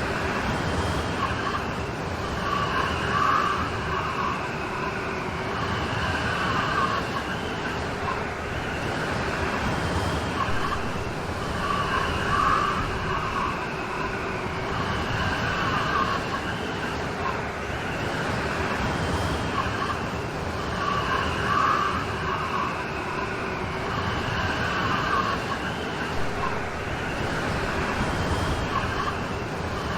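Steady heavy rain, with a swell that comes back about every nine seconds.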